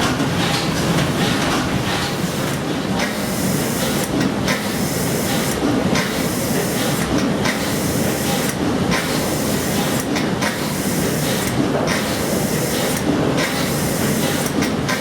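Escher Wyss steam engine of the paddle steamer Blümlisalp running steadily: a continuous mechanical clatter and steam hiss, with the hiss easing in an even beat about once every second and a half.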